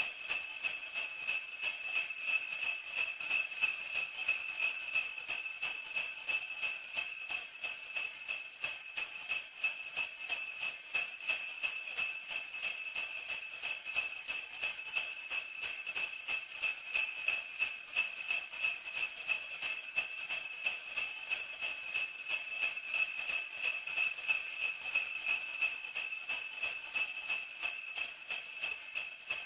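Sleigh bells shaken in a steady, even rhythm, about two to three jingles a second, ringing without a break.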